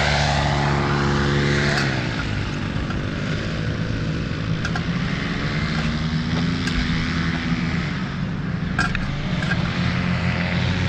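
Paramotor trike engine and propeller running, throttling down about two seconds in and then idling steadily, with a few faint clicks over it.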